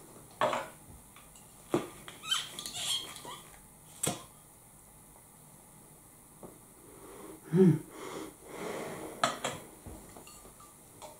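A cork stopper squeaking as it is twisted and drawn out of the neck of a glass whisky bottle, ending in a short sharp pop about four seconds in. Near the end come a few light knocks of the bottle being handled.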